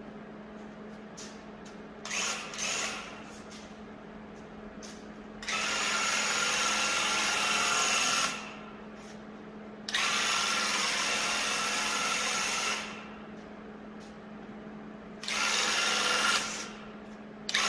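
Graco cordless handheld airless paint sprayer running in bursts as the trigger is pulled and released, its pump buzzing with the hiss of the spray. There are two short blips about two seconds in, then longer passes of about three seconds each and a shorter one, laying a light coat of paint along a door.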